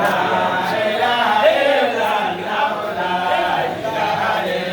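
A group of men chanting together in unison, a devotional chant of praise, with many voices overlapping.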